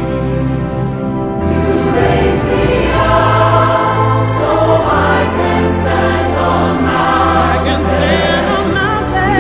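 Background music: a choir singing held, wavering notes over sustained instrumental accompaniment, the voices coming in about a second and a half in.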